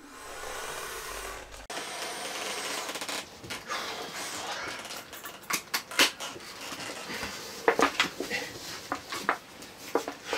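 Quiet handling noise of a piano accordion being closed up and lowered after playing: scattered small clicks and knocks, more frequent in the second half, over a faint hiss.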